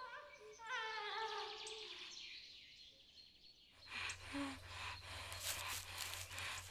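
A gagged woman's muffled whimpering and moaning, then heavy, noisy breathing from about four seconds in.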